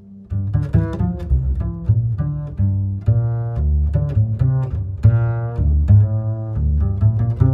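Lo-fi background music: a deep bass line under a run of pitched notes that change about every half second.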